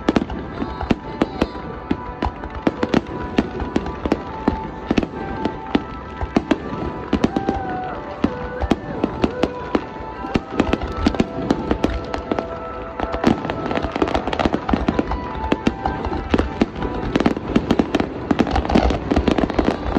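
Aerial firework shells bursting in a dense, continuous barrage, many sharp bangs and crackles a second. Music plays underneath.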